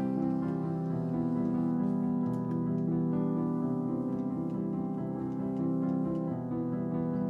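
Instrumental background music: a slow piano piece of held notes that change every second or so.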